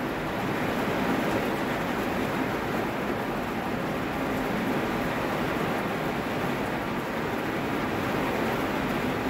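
Heavy rain heard from inside a car: a steady, even hiss with no breaks.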